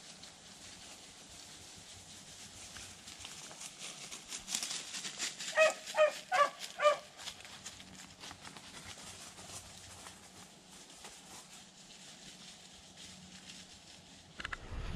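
A rabbit-hunting beagle barks five times in quick succession, loud and sharp, about six seconds in, with dry leaves rustling around the barks.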